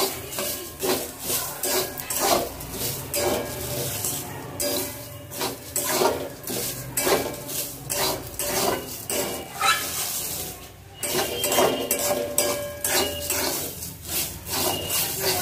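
Metal spatula scraping and stirring raw atap rice grains around a steel karahi as they dry-roast, the grains rattling against the pan. The scrapes come in a quick rhythm of two or three a second, with a brief pause about two-thirds of the way through.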